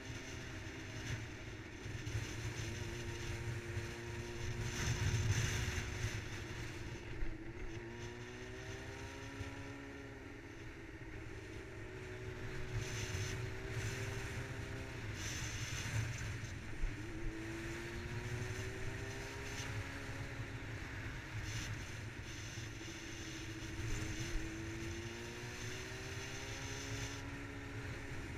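Yamaha R6's inline-four engine running as the bike rides along, its note dipping and then climbing again three times as the rider eases off and accelerates. Heavy wind rumble on the helmet- or bike-mounted microphone runs underneath.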